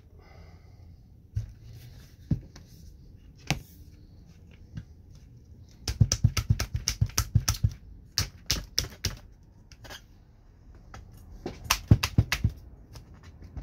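Sharp taps and knocks as a Lexan window pane in its rubber gasket is worked by hand into a Humvee X-door's metal window frame: a few single knocks, then a quick run of taps lasting about three seconds around the middle, and another short run near the end.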